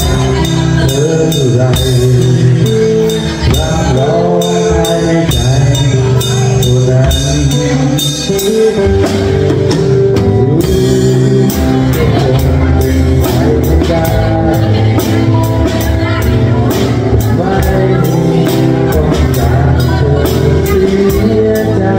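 Drum kit played with sticks, keeping a steady beat with cymbals, in a live rock band with bass and guitar and a singing voice.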